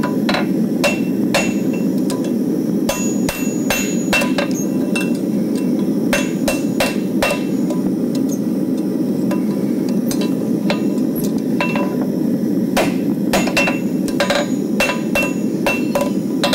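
Farrier's hammer striking a hot steel horseshoe on a steel anvil, shaping it into a hind shoe. The blows come in irregular groups of a few strikes with pauses between, some leaving a short ring from the anvil, over a steady low rushing noise.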